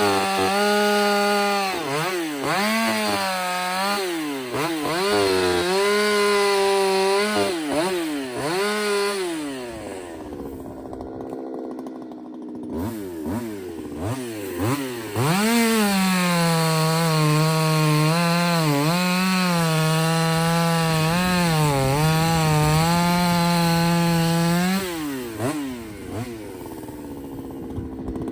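Ported Husqvarna 359 two-stroke chainsaw bucking firewood. It runs at full throttle through short cuts, dropping back between them for the first nine seconds or so, then settles to idle for a few seconds. It then makes one long cut of about ten seconds at a steady, slightly lower pitch under load before dropping back to idle near the end.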